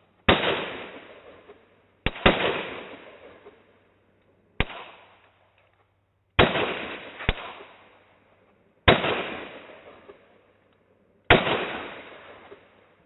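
Smith & Wesson M&P15-22 semi-automatic .22 LR rifle firing about five single shots, each a sharp crack with a long echoing tail, a couple of seconds apart. A few shorter, weaker sharp cracks come in between. The bolt has no extractor, so spent cases fail to eject after each shot.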